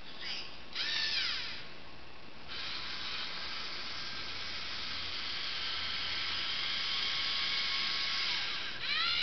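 LEGO Mindstorms NXT robot's servo motors and gears whining as it travels along a pole: two short swooping whines in the first couple of seconds, then a steady whine for about six seconds, then another short swoop near the end.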